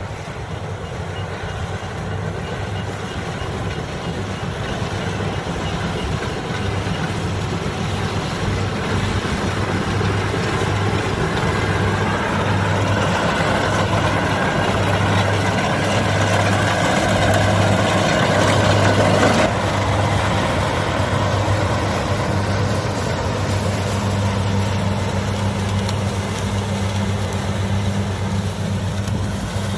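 Kubota DC-70 rice combine harvester running steadily at work, a constant diesel engine hum under machinery noise. A louder rushing noise builds through the middle and cuts off suddenly about two-thirds of the way through.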